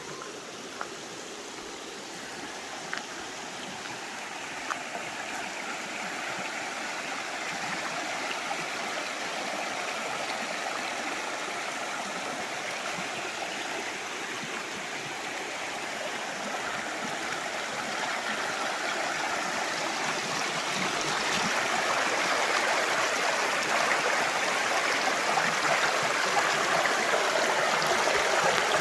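Creek water rushing and gurgling over rocks, a steady rush that grows gradually louder, with a few faint small clicks in the first few seconds.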